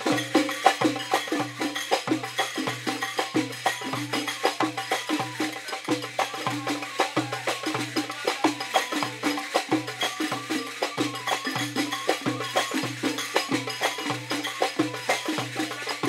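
Egyptian tannoura folk music driven by frame drums and hand percussion, with a deep beat about twice a second under quick sharp strikes.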